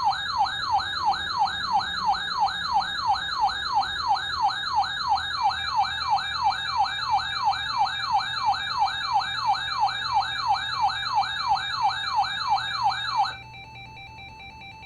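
Electronic warbling alert tone of a broadcast severe-weather warning: a siren-like tone sweeping quickly downward about three times a second, signalling that a warning is about to be read. It cuts off abruptly near the end, leaving a fainter steady tone.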